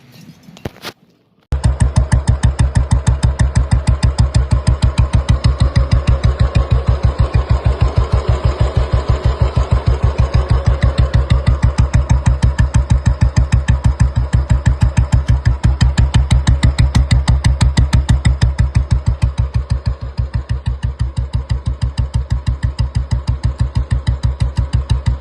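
Old-model Royal Enfield Bullet single-cylinder four-stroke engine running with an even, fast thumping beat. It comes in suddenly about a second and a half in. This is the engine after its piston pin knock was repaired, which the mechanic calls a much better sound.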